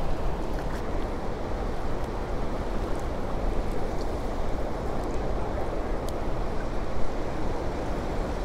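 Steady rushing of turbulent water released from a dam, with a low wind rumble on the microphone and a few faint clicks.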